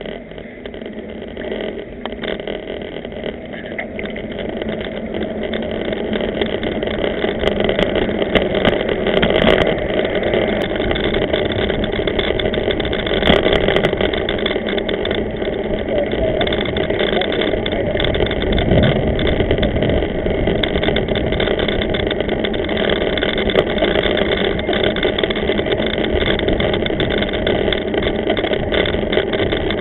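Steady wind rush over a bicycle camera's microphone with tyre and road rumble while cycling, growing louder over the first several seconds and then holding steady.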